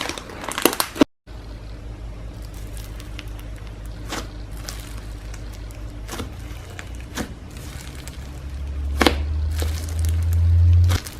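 Slime being squished and pressed by hand: dense crackles and clicks for the first second, then, after a short cut, sparse sharp pops over a low rumble that grows louder and stops abruptly near the end.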